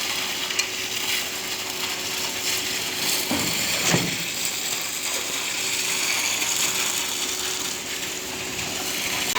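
Machinery running with a continuous mechanical rattle and a steady faint hum, with two brief louder sweeps about three and four seconds in.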